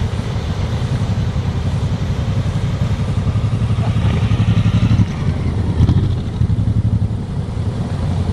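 Motorcycle engine running steadily with a low, fast pulsing.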